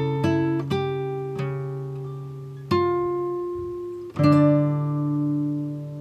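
Background music of slow, gently plucked string notes, each ringing out and fading. Louder chords strike about three seconds in and again just after four seconds.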